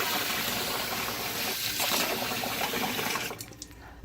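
Tap water running steadily into a sink, shut off abruptly near the end, during cleanup of slime that dissolves in water.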